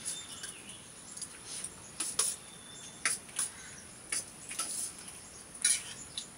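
Metal spoon clinking and scraping on a steel plate while eating rice, in irregular short clinks. A faint steady high-pitched whine runs underneath.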